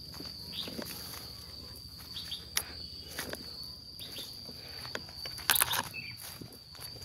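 Footsteps and rustling over a steady high-pitched insect drone, with a louder rustle about five and a half seconds in.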